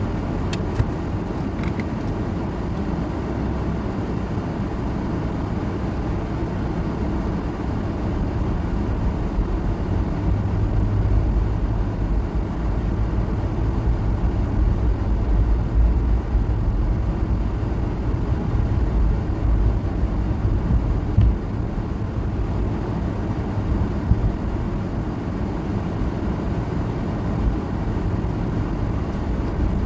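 Car running: a steady low rumble of engine and road noise that swells somewhat in the middle, with a few faint clicks.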